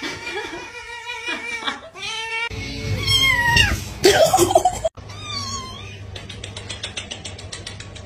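Cats meowing across several short clips, with a louder stretch of meows and yowls near the middle. A fast, even ticking runs through the last few seconds.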